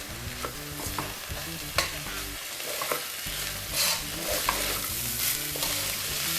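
A spoon stirring and scraping rice in hot ghee in a pressure cooker, with a light sizzle and irregular clinks against the pot.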